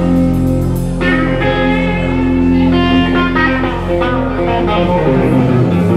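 A live band playing loud amplified music: electric guitars over a drum kit.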